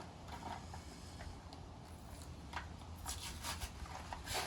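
A foil Pokémon booster pack wrapper being handled and torn open: quiet rustling, then several short crinkling tears in the second half, over a low steady hum.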